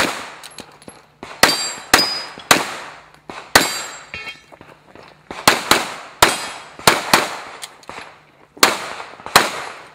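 Pistol shots fired in a fast, uneven string: about a dozen over ten seconds, several in quick pairs, each with a short echoing tail.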